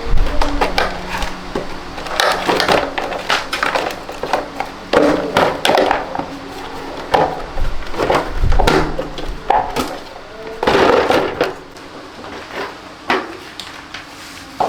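Irregular knocks, clacks and scraping of parts being handled and pulled off an Attila scooter during disassembly, with a longer rasping scrape about eleven seconds in.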